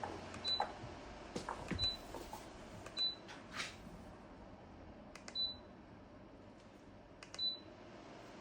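Dreo tower fan's control panel beeping: five short high beeps at irregular intervals, each right after a button click, as its settings are changed. A low steady hum runs underneath.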